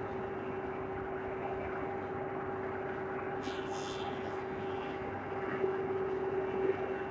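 Wood moulding machine running steadily with a constant hum, its cutterheads planing merbau timber on all four sides. There is a brief hiss about halfway through, and the machine grows louder for a second or so near the end.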